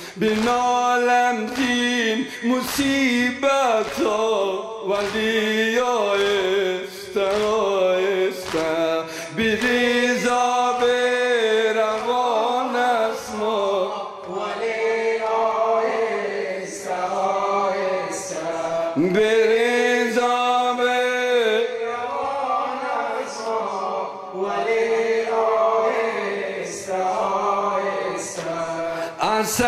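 A male reciter chants a mournful Persian latmiya (noha) into a microphone in long held notes that slide in pitch. Behind him the congregation's hand-on-chest beating strikes in a steady beat about once a second.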